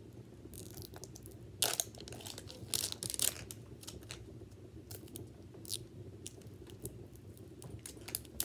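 Thin plastic wrapper on a Mini Brands capsule ball crinkling and clicking as it is peeled off by hand. The crackles are irregular, and the loudest come about two and three seconds in.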